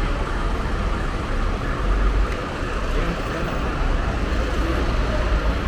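Road traffic noise: heavy vehicle engines rumbling steadily over a constant roadway hiss, with the low rumble swelling about two seconds in.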